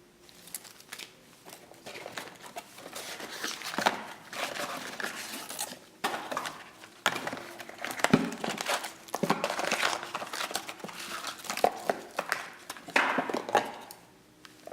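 Packaging being handled and unwrapped: irregular crinkling and rustling with scattered knocks and clicks.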